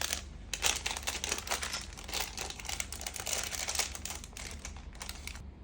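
Plastic packaging crinkling and rustling as it is handled: a dense run of irregular crackles that stops shortly before the end.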